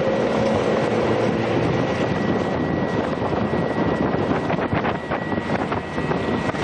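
Steady engine and road noise of a vehicle driving along a forest road, heard from on board, with a few short knocks and rattles about five seconds in.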